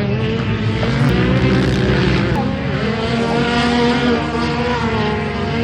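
Several car engines running and revving at once, their pitches rising and falling over a steady low rumble.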